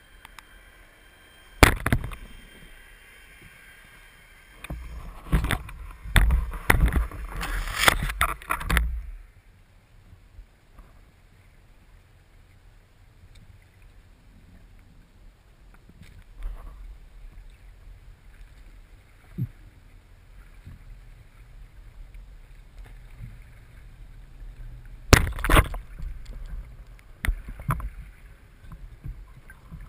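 Underwater recording of spearfishing gear: sharp knocks and clatters over a low rush of water. There is a single knock about two seconds in, a dense run of them from about five to nine seconds, and another burst near twenty-five seconds.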